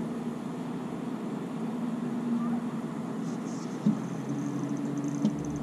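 Steady hum of a fishing boat's motor, stepping up slightly in pitch about four seconds in, with a single knock around the same time and a faint high whine.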